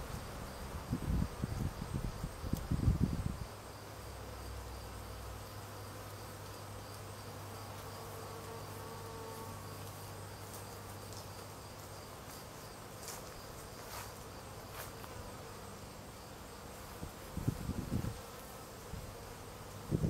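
Honey bee swarm clustered on a tree branch: the steady hum of many bees buzzing. Low rumbles on the microphone for the first few seconds and again briefly near the end.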